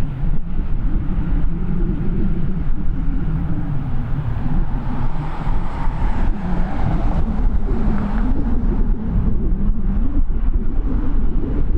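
Gusty wind buffeting the microphone in an uneven low rumble, with jet aircraft engine noise swelling and fading in the middle.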